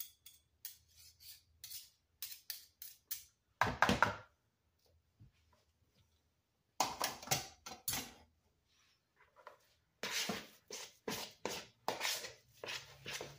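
Wire whisk and spoon clicking and scraping against a plastic mixing bowl as a very thick dough is stirred, with a louder knock about four seconds in. Later, hands work the dough in the bowl in quick repeated strokes.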